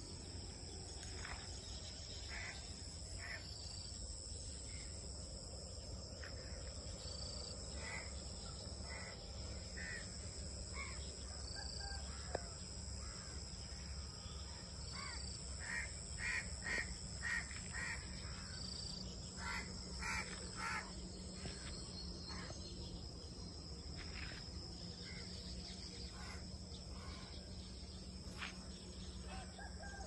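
Rural dawn ambience: a steady high trill of insects, with a short high chirp every few seconds and scattered bird calls that bunch into a louder run of calls about halfway through, over a low steady rumble.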